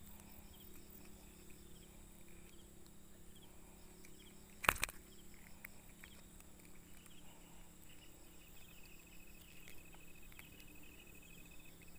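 Faint insects chirping in short repeated chirps, with a steady trill in the second half. A single sharp knock about halfway through.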